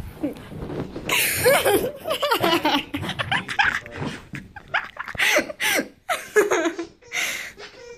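A person laughing in repeated bursts, starting about a second in and going on almost to the end.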